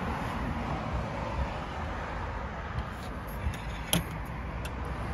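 A few light clicks as a slide-hammer dent puller is fitted onto a glued plastic pull tab, the sharpest about four seconds in, over a steady outdoor traffic hum.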